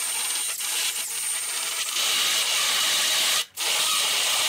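Cordless drill spinning a carbide burr, grinding into wood to cut out bark and rot: a steady high motor whine over the rasping of the cutter in the wood. It stops for a moment about three and a half seconds in, then starts again.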